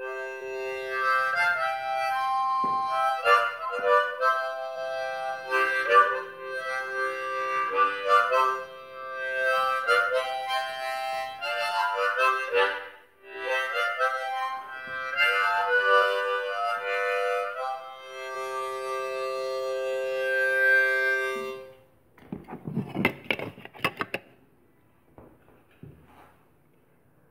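A harmonica playing a tune of short and held notes, often several sounding together. It ends about three-quarters of the way through on one long held note, followed by a couple of seconds of handling noise and then quiet.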